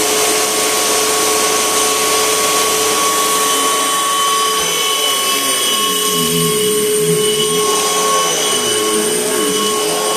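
2004 Panasonic upright vacuum cleaner running steadily, its motor giving a loud, even whine. In the second half a lower wavering tone rises and falls over the whine.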